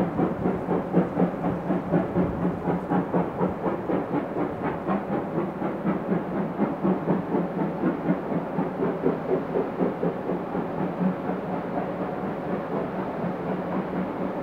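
Fertilizer freight train approaching unseen along the track: a steady engine drone with a fast, even pulsing of about three to four beats a second.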